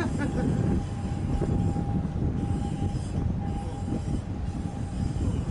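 Large container ship passing close by: a low, uneven rumble under a steady high whine.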